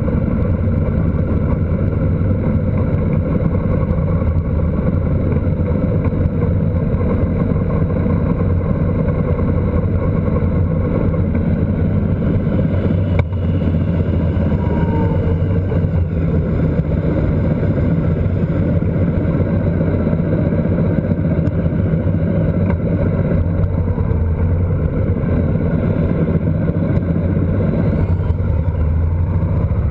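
Motorcycle engine running steadily at cruising speed, with wind rushing over the mounted camera's microphone.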